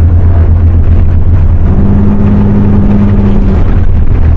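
A vehicle running while driving through snow: a loud, steady low engine drone, with a higher steady hum joining for about two seconds in the middle.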